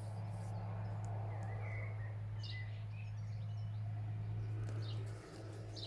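A steady low hum with faint bird chirps in the background. The hum dips a little near the end.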